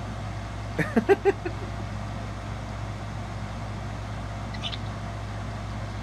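Steady low hum, with a brief burst of voice, a few short syllables, about a second in.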